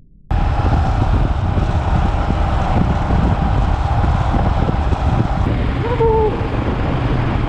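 Road and engine noise from a moving vehicle, with wind on the microphone, starting abruptly. A short tone sounds briefly about six seconds in.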